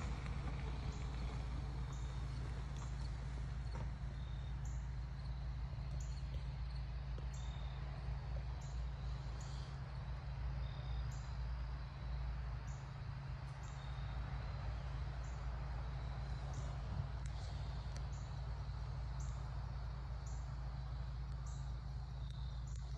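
Outdoor ambience: a steady low hum, with short high-pitched chirps repeating roughly once a second.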